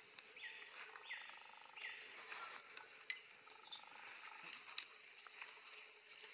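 Faint outdoor ambience with a few short chirping calls in the first two seconds and two sharp clicks later on, the second the loudest.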